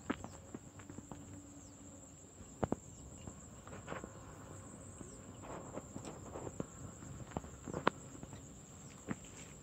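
A steady high-pitched insect trill that dips briefly about once a second, over scattered clicks and rustles close by, the loudest a sharp click about eight seconds in.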